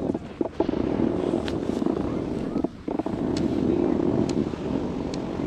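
Skis gliding slowly over groomed snow: a steady rumbling scrape that drops out briefly near the middle, with a few faint clicks.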